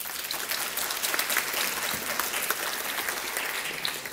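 Audience applauding, many hands clapping at once in a dense, steady patter.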